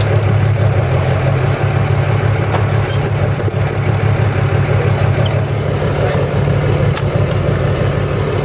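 A charter fishing boat's inboard engine running steadily while trolling, a constant low hum.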